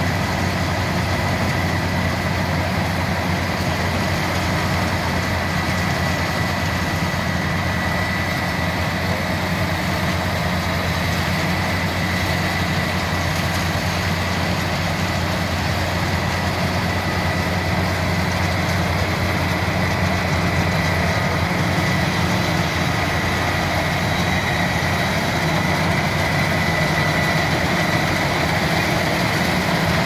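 Tracked rice combine harvester running steadily as it works through the rice: a constant engine drone with a thin steady high whine over it.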